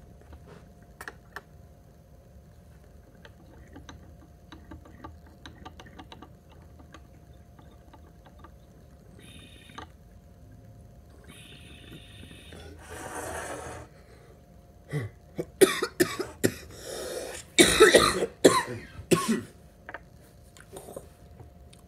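Faint bubbling from a bong's water while a dab is inhaled, a breath out about thirteen seconds in, then a run of hard, repeated coughs from the harsh dab hit.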